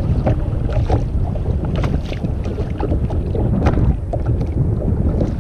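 Steady wind noise on the microphone, with scattered light knocks and water sounds against a sit-on-top kayak's hull.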